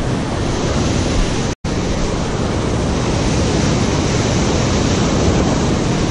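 Ocean surf breaking and washing over shoreline rocks, a loud, steady rush of water. The sound cuts out for an instant about one and a half seconds in.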